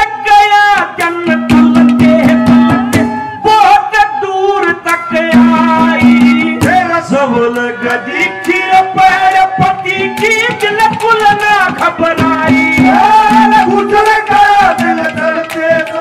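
Haryanvi ragni: a male singer sings a bending, ornamented vocal line through a microphone. A hand drum plays steady strokes under it, with a held low instrumental note that keeps returning.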